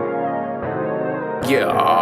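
Background music: repeated electric-piano chords, then a sweeping transition effect comes in about a second and a half in, leading into a hip-hop track.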